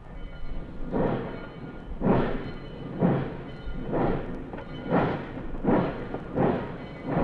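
Steam locomotive exhaust chuffing: heavy, regular blasts about one a second, quickening to under a second apart after the middle.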